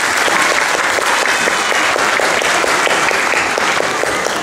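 Audience applauding, a dense steady clapping from many hands.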